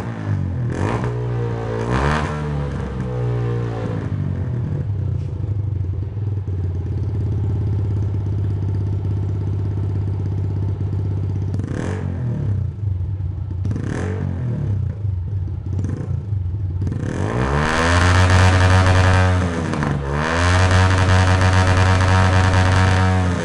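2002 Honda CG 125 Titan ES's single-cylinder four-stroke engine breathing through an aftermarket Aluminium RS exhaust. It idles with a few quick throttle blips, then is revved hard and held at high revs twice near the end.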